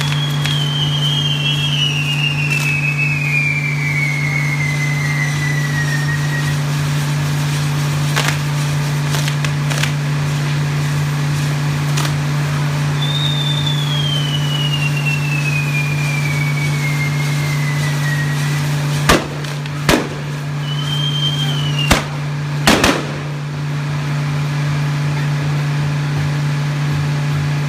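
Castillo fireworks tower burning: a steady rushing hiss of burning pyrotechnics over a constant low hum. Two long whistles each fall slowly in pitch over several seconds, one near the start and one in the middle. Four loud sharp bangs come in two pairs, one pair about two-thirds of the way through and one soon after.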